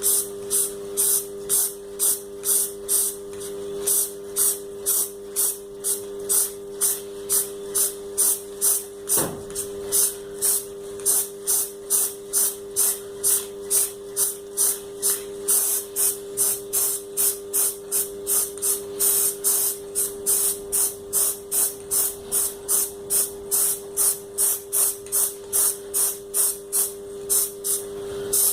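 Paint spraying onto an air-conditioner blower wheel's counterweight plates: a hiss pulsing very regularly about twice a second, over a steady low hum.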